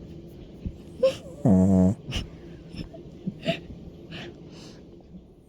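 Loud snoring: one long buzzing snore about a second and a half in, with short soft snuffling breaths and clicks before and after it.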